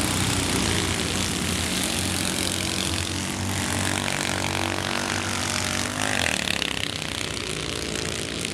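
Several Citroën 2CV race cars' air-cooled flat-twin engines buzzing together as they race on a dirt track, their notes overlapping and shifting in pitch. One engine's note climbs briefly about six seconds in as it accelerates.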